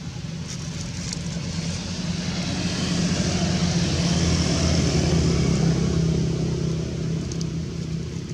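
A motor vehicle passing by: its engine hum and tyre hiss grow louder to a peak about four to five seconds in, then fade away.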